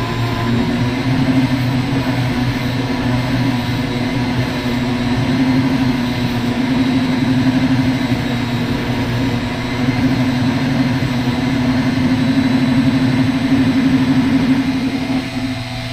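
Small handheld rotary tool with a sanding bit running steadily, grinding down the epoxy patch over a chip in an antique revolver's grip. Near the end it drops in level as it comes off the grip.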